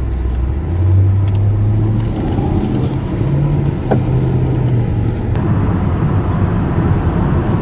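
Car engine pulling away and accelerating, its pitch climbing in steps through the first few seconds. It then settles into steady engine and road rumble as the car drives on.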